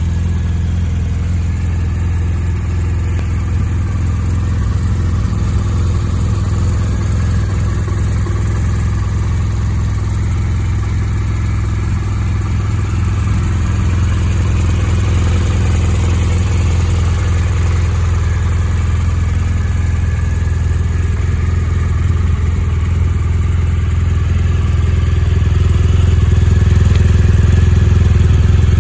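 BMW R1200GS Adventure's 1170 cc boxer twin engine idling steadily, a little louder near the end.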